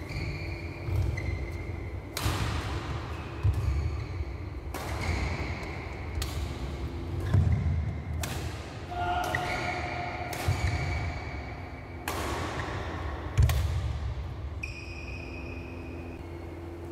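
Badminton rally in an echoing hall: about six sharp racket-on-shuttlecock hits a second or two apart, each ringing out in the hall. Between the hits come thudding footsteps and short high squeaks of shoes on the court mat.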